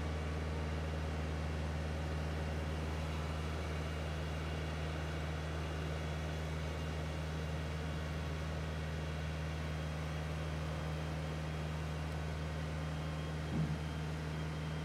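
An engine running steadily at idle, a low even hum over faint street background noise, with one brief short sound near the end.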